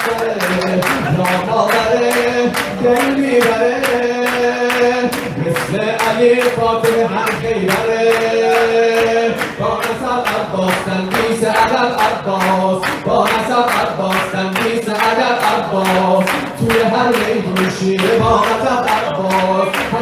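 A man singing a devotional poem into a microphone, holding long notes, with steady rhythmic clapping in time throughout.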